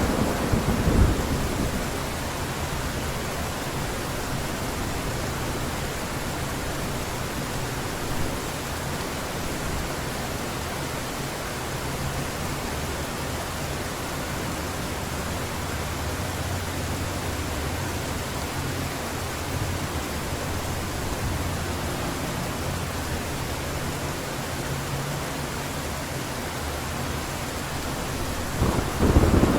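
Heavy rain pouring steadily, with a thunderclap fading away about a second in and another loud clap of thunder breaking near the end.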